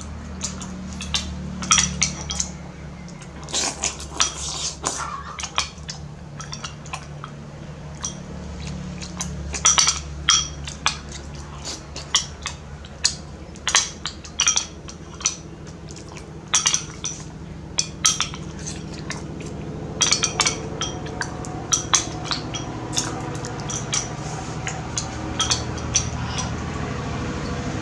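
Metal spoon clinking and scraping against a ceramic bowl in many short, irregular taps, with a steady low hum underneath.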